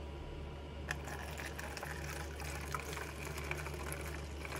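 Used isopropyl alcohol poured from a glass jar onto paint filter paper in a plastic funnel. A light tap comes about a second in, then a soft, steady pouring and trickling over a low hum.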